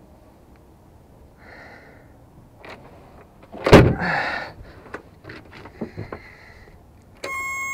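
Knocks and clicks of handling in a small boat's cockpit, with one loud thump about halfway. Near the end a steady, high-pitched electronic buzzer starts: an outboard motor's warning buzzer sounding as the ignition is switched on before starting.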